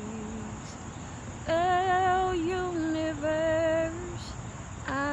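A woman singing wordlessly. A low hummed note is followed by a short pause, then a higher held melody with vibrato sounds over a lower sustained note, and a brief rising note comes near the end.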